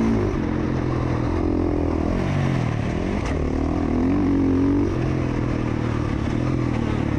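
Motocross dirt bike engine under hard riding, revving up and easing off several times, its pitch climbing and falling as the rider accelerates and backs off.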